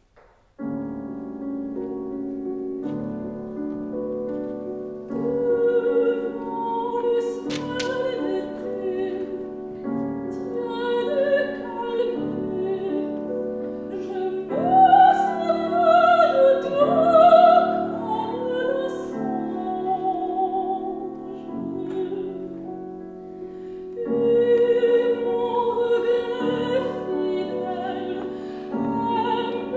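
Classical chamber ensemble of strings and piano comes in with a sustained chord about half a second in, and a soprano sings an art song over the accompaniment, her voice wavering with vibrato.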